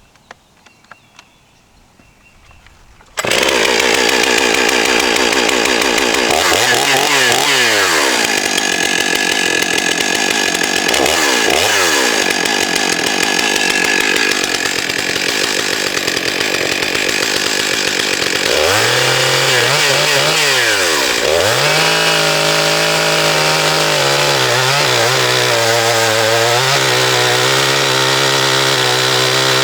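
Stihl 661 Magnum two-stroke chainsaw cutting into a large oak log, starting abruptly a few seconds in after a quiet moment with faint clicks. The engine's pitch dips several times as the bar loads in the cut, then it settles into a lower, steady note under load.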